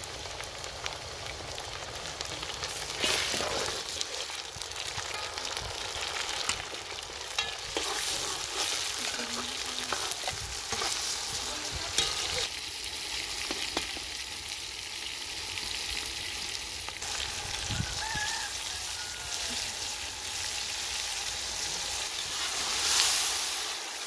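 Chopped tomatoes and onions sizzling as they fry in hot oil in a large aluminium pot, the base of a shorwa soup, with a ladle stirring and scraping against the pot now and then. It gets louder for a moment near the end.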